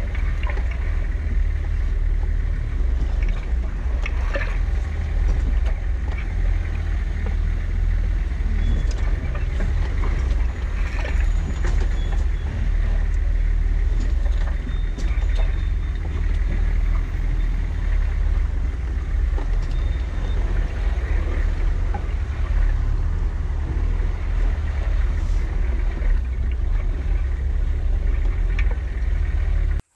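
Off-road vehicle climbing a rocky trail: a heavy, uneven low rumble of engine, drivetrain and buffeting, with scattered knocks and clunks.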